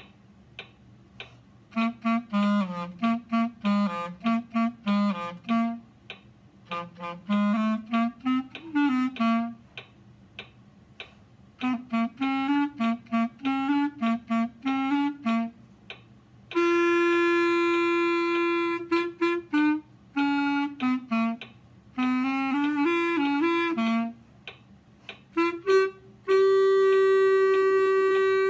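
Unaccompanied clarinet playing a tune in phrases of short, detached notes with brief rests between them, and two long held notes, one about two-thirds of the way through and one near the end.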